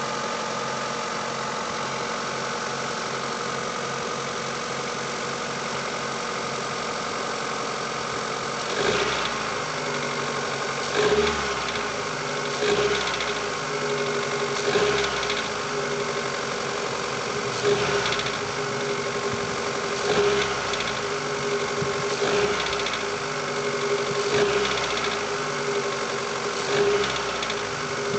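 Mitsubishi Lancer IX's 4G18 four-cylinder engine shortly after a cold start near freezing, idling steadily for about eight seconds, then blipped to around 2000 rpm and let drop about nine times, every two seconds or so. A knock comes through as the revs fall back after each release, which the owner suspects came from a partly clogged hydraulic lash adjuster.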